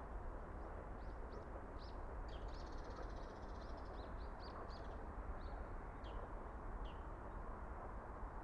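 A small bird chirping: a string of short, high, quick chirps with a rapid trill about two to three seconds in, fading out about seven seconds in. Under it runs a steady low rumble of background noise.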